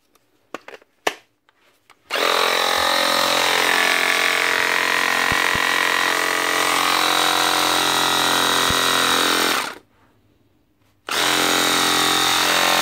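ErgoPro F6 cordless 12 V cattle clippers, their head freshly cleaned and greased, running under power: a steady motor-and-blade whine that starts about two seconds in after a few handling clicks, cuts off after about eight seconds, and starts again about a second later.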